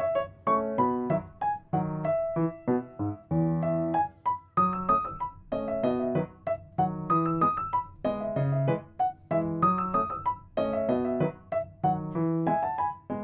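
Background piano music: a bouncy melody of short, quickly struck notes over a lower accompaniment.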